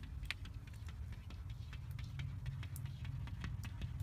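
A cat's paws tapping and scratching against a glass window pane: light, irregular clicks, several a second, over a steady low rumble.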